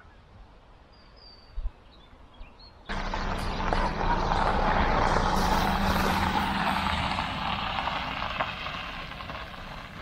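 A few faint bird chirps, then suddenly a car driving along a gravel drive: engine hum and tyres crunching on the gravel, loudest as it passes and fading as it moves away.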